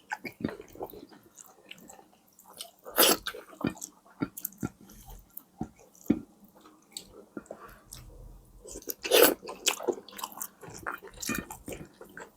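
Close-up chewing and biting of food: irregular wet mouth clicks and smacks, with louder bites about three seconds in and again around nine seconds.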